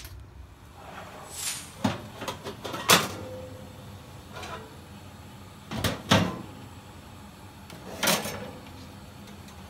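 A metal baking tray knocking and scraping on an oven's wire rack as it is slid in and out. There are about five sharp clanks, the loudest around three and six seconds in.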